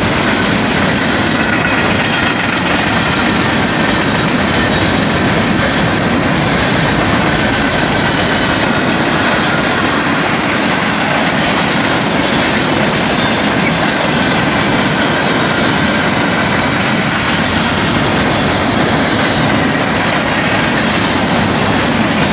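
Freight train cars rolling past, covered hoppers and tank cars: a loud, steady rumble and rattle of steel wheels running on the rails.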